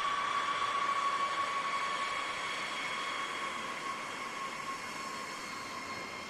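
A B-52 bomber's eight turbofan jet engines running loud: a high whine over a steady rush, which slowly fades and falls a little in pitch.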